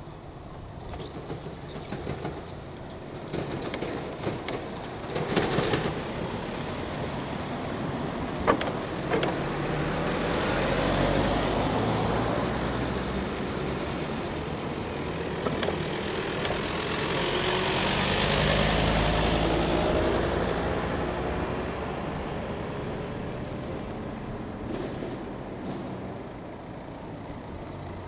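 Road traffic driving over a railway level crossing: engine and tyre noise swells twice as vehicles pass close, with a few sharp knocks in between.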